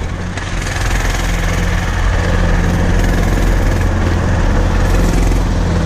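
Oliver 880 tractor engine running steadily as it pulls a hay mower through the field, growing a little louder in the first second as it draws nearer.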